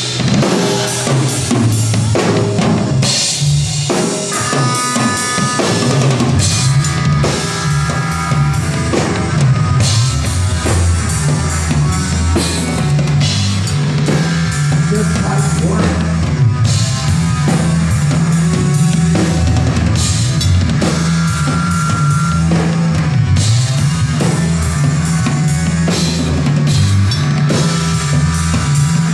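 Live rock band playing without vocals: a drum kit with driving bass drum and snare, over a bass guitar line and electric guitars.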